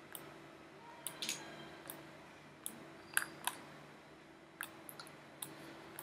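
Irregular computer mouse clicks, about ten of them, as a 3D object is selected and dragged, over a faint steady hum.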